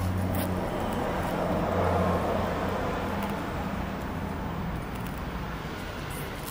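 Outdoor background noise of road traffic: a broad rush that swells about two seconds in and then eases, over a steady low hum.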